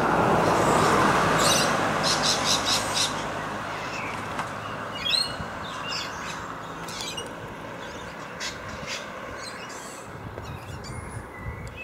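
Birds calling, which the walker takes to be cockatoos: a quick run of about five repeated calls in the first few seconds, then single calls every second or two. Under them runs a steady background rush, loudest at the start.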